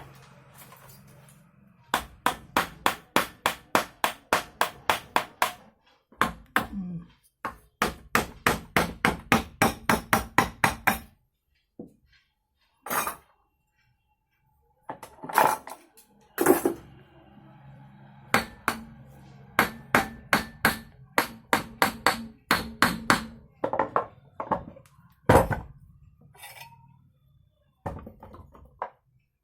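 A hammer striking metal in quick runs of about four blows a second, with a few single knocks and pauses between the runs, as in work on an electric motor.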